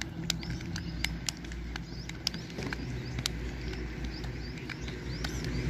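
Outdoor ambience of birds chirping, with many quick sharp clicks scattered irregularly through it, over a steady low hum.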